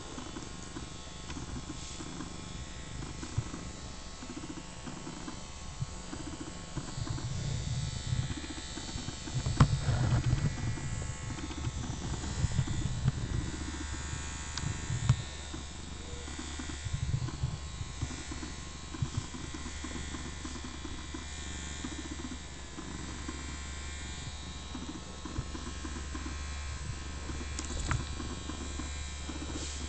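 Handheld vibrating massager buzzing steadily as it is run over a cat's fur, with louder rubbing and handling noise in the middle stretch.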